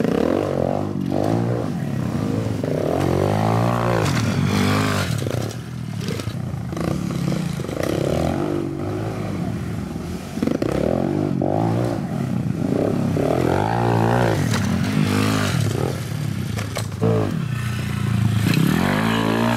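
Pit bike engines revving hard and falling back again and again as the bikes go over dirt jumps, with an occasional sharp clatter.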